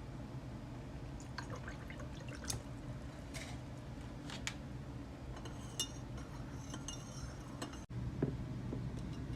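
Light clinks and taps of a mug or glassware, a few of them briefly ringing, with liquid being poured, over a steady low hum.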